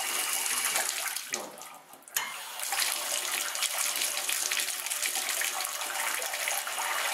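Water running from a bathtub tap into a filling tub, a steady splashing hiss. It dies down for a moment about two seconds in, then comes back suddenly at full flow.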